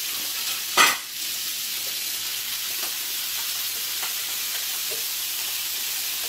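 Finely chopped onion and red pepper sizzling steadily as they start to fry in hot oil in a pan of browned meat, the beginning of a sofregit. A sudden loud burst about a second in.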